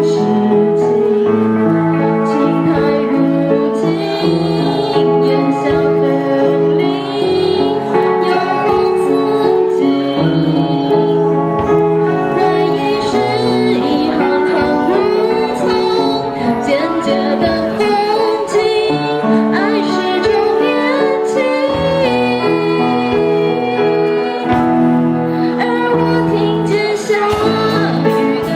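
Music: a slow song with a singing voice over keyboard accompaniment.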